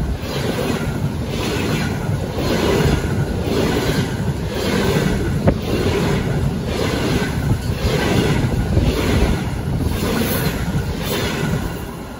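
Double-decker passenger coaches rolling past at speed: a steady rumble of steel wheels on rails with a regular, rhythmic clatter as the bogies go by, plus a rush of air. It drops away near the end as the last coach passes.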